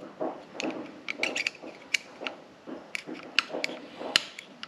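Small metal clicks and scrapes of a screwdriver tip working around a wrist-pin circlip in its groove in a piston, checking that the clip is fully seated. The clicks come irregularly, a few a second.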